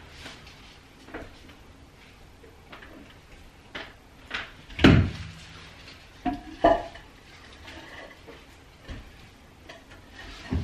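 A heavy plant pot being handled and shifted on the floor: scattered knocks, bumps and scrapes, with the loudest thud about five seconds in and two more knocks close together near seven seconds.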